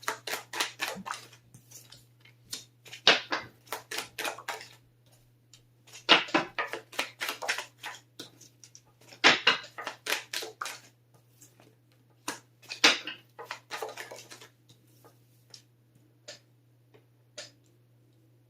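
A deck of tarot cards being shuffled by hand in four bursts of quick, crisp flapping strokes. Near the end there are only a few single soft taps.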